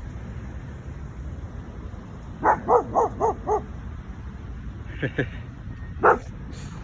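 German shepherd barking: a quick run of five barks about two and a half seconds in, then two more and one final loud bark near the end.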